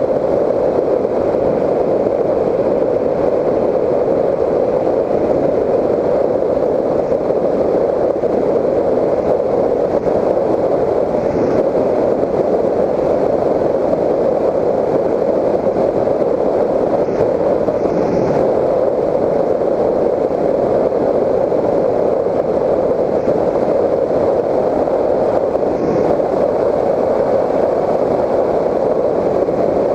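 Steady rush of airflow over the onboard GoPro of a Raptor 1600 FPV model plane in flight. It is a dull, even noise with no engine or propeller tone in it.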